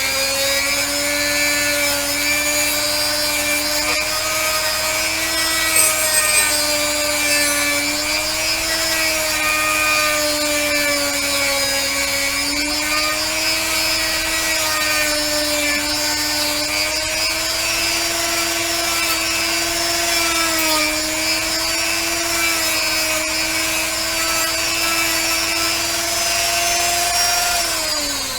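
Handheld rotary tool running with a silver-bristle polishing brush on a pewter cast: a steady motor whine whose pitch wavers slightly, winding down near the end.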